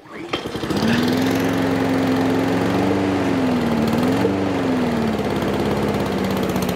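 Honda 160cc overhead-cam single-cylinder lawn mower engine starting up on its first run after a carburettor strip-down and service. It catches within the first second and runs steadily, its speed wavering briefly in the middle before settling a little lower.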